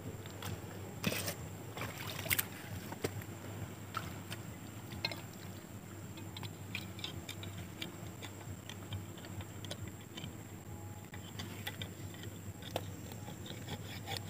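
Scattered scrapes, clicks and small splashes of a thin rod probing a water-filled hole in coral rock for a mud crab, with a couple of sharper knocks in the first few seconds, over a steady low wind rumble.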